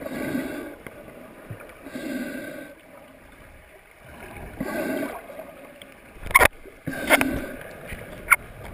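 A snorkeler breathing through a snorkel underwater, slow regular breaths about every two seconds, with water gurgling. Three sharp knocks or clicks come in the last few seconds.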